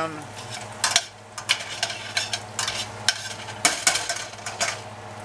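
Metal tongs stirring and clacking against a stainless steel skillet, with about a dozen irregular clicks, as garlic and butter cubes are pushed around in sizzling olive oil and bacon grease.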